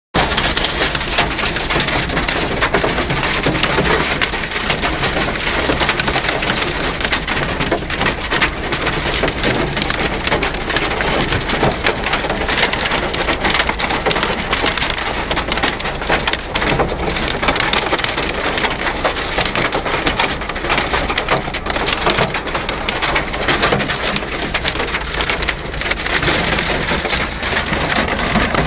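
Heavy rain and hail pelting a vehicle's roof and windshield, heard from inside the cab as a loud, dense clatter of impacts that keeps up steadily.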